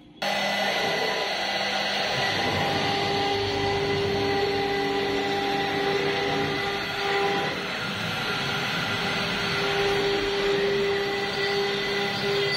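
CNC router spindle cutting into a wooden door panel: a steady high whine with the rasp of the bit in the wood, starting suddenly just after the start and running on evenly.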